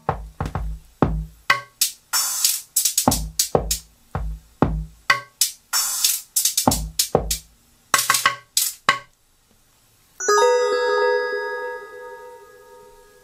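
Drum-machine beat loop made in the ROLI Noise app playing back: a pattern of low kick drums and sharp high hits that stops about nine seconds in. About a second later a held chord of bell-like synth tones starts and slowly fades.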